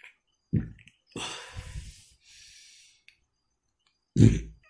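A person breathing audibly into a close microphone, one long breath about a second in, with two short low vocal sounds, one near the start and a louder one near the end.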